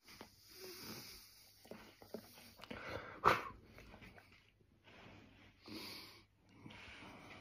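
Siberian husky breathing and huffing close to the microphone in a small room: several short breathy bursts, the loudest about three seconds in.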